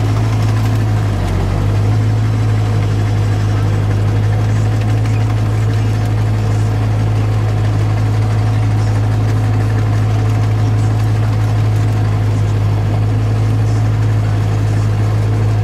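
New Holland T7030 tractor's six-cylinder diesel engine running steadily, heard from inside the cab as a constant low drone.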